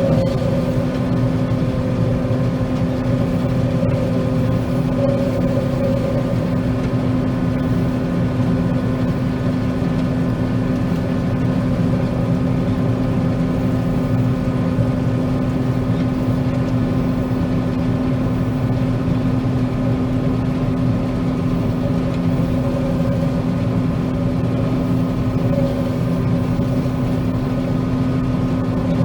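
John Deere 9500 combine running steadily while cutting soybeans: a constant machine drone with a steady hum, unchanged throughout.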